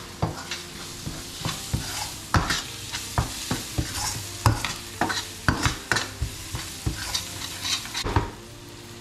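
Metal spoon stirring and scraping onions and ground spices frying in a stainless steel pan, with quick clinks and scrapes against the pan a few times a second over a steady sizzle; the stirring stops just before the end. The ground spices, garam masala last, are being fried into the onion base.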